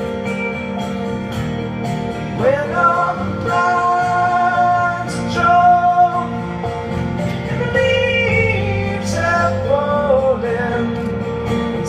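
Live solo acoustic performance: a man singing long held notes over an acoustic guitar.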